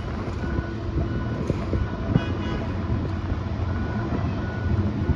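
Outdoor rail yard and city traffic background: a steady low rumble, with a short high toot about two seconds in.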